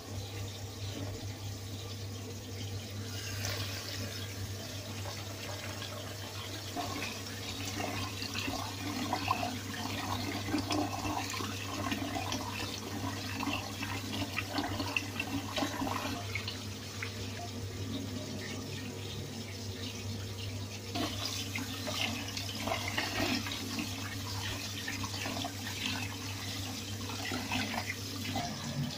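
Water from a tap running into a plastic bowl of rice while a hand swishes and rubs the grains to rinse them, with irregular splashing and sloshing.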